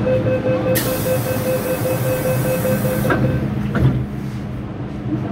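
MTR M-Train door-closing warning: a rapid beeping tone for about three and a half seconds, with a loud hiss over most of it. The doors bump shut about three seconds in, followed by a second knock a moment later, over the steady hum of the stopped train.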